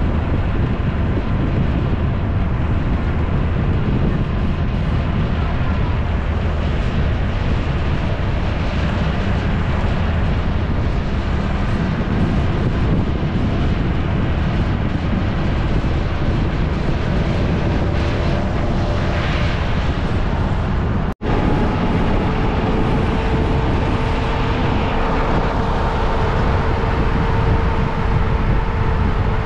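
Wind rushing over the microphone of a moving vehicle, with a faint engine hum that drifts slowly in pitch under the noise. The sound cuts out for an instant about two-thirds of the way through.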